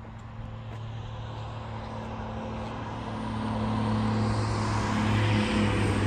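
A motor vehicle engine running steadily, growing louder over the last few seconds.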